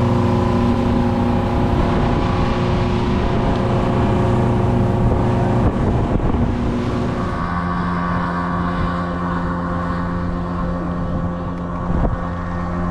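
Motorboat engine running at speed, with wind and water rushing past. A little past halfway the rush eases and the engine note changes, as the boat comes off the plane.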